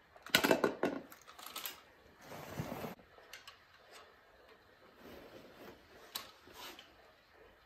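Hard plastic clicks and clatter as a toy reacher-grabber sets a mini trash bin down: a quick run of clicks in the first two seconds, a short scrape near the middle, and a couple of lighter clicks later.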